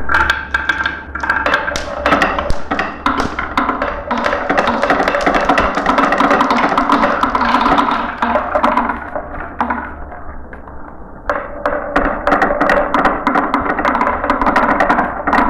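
Many glass marbles rolling and clacking down a marble run track: a dense rattle of quick clicks over a steady rolling rumble. The rattle eases off for about a second near the ten-second mark, then a fresh rush of marbles comes down.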